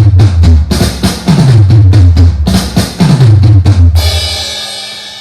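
Music: a heavy drum beat with deep, falling bass notes under the hits, which ends about four seconds in on a cymbal crash that rings out and fades.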